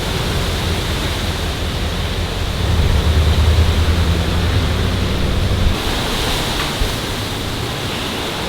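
Hurricane wind gusting, with strong low buffeting on the microphone that builds to its loudest a few seconds in and eases off about two-thirds of the way through, leaving a steady rushing noise.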